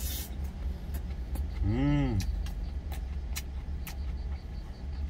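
Low, steady rumble of the truck's idling engine heard inside the cab, with a few light clicks of chopsticks and eating. About two seconds in, a short 'mmm' of enjoyment that rises and falls in pitch from the man chewing his food.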